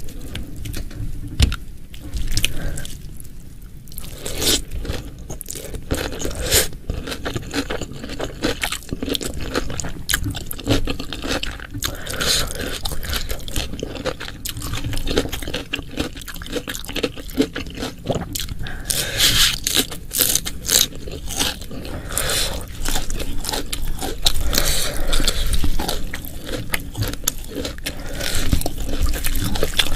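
Close-miked eating sounds: wet chewing and crunching of food, with frequent crackles and clicks throughout.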